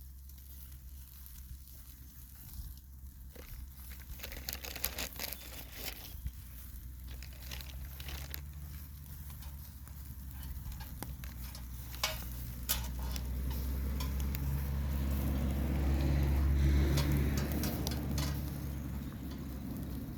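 Skewered liver sizzling as it cooks, with scattered pops and crackles. A low rumble swells and fades in the second half.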